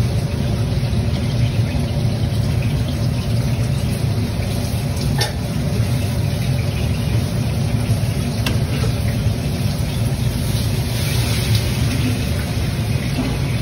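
Steady low machine-like rumble, with a couple of faint clicks about five and eight and a half seconds in.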